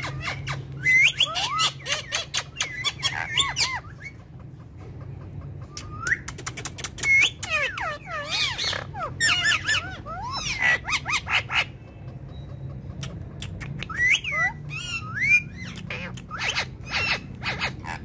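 Ringneck parakeets chirping and squawking: quick rising and falling calls mixed with rapid sharp clicks, in three bursts with short lulls between them.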